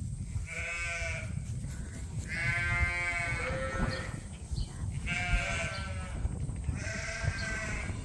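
Suffolk sheep bleating: four separate calls, each about a second long, over a steady low rumble.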